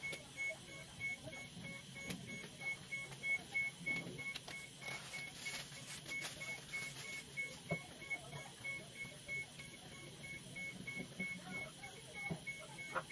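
Hospital bedside medical equipment alarm beeping: a steady string of short, high, evenly spaced beeps, with faint handling rustles as someone works at the IV pole.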